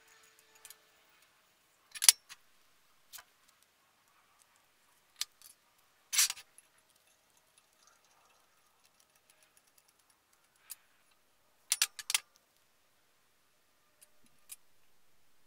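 Masking tape being cut with scissors and torn while it is laid along a vise body: a few scattered short, sharp snips and rips, the loudest about two seconds in, a slightly longer tear about six seconds in, and a quick run of three or four about three quarters of the way through.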